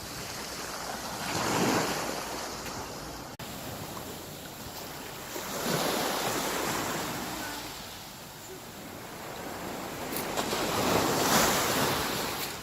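Sea waves breaking and washing up on the shore, the surf swelling three times, roughly every four to five seconds.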